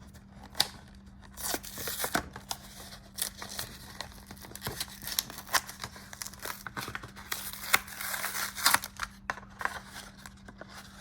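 Yu-Gi-Oh twin pack packaging being torn open and crinkled by hand: irregular tearing and crinkling with sharp snaps.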